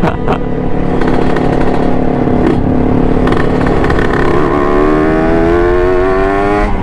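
Kawasaki Ninja sport bike's engine running under the rider, steady at first, then rising in pitch as it accelerates over the last couple of seconds.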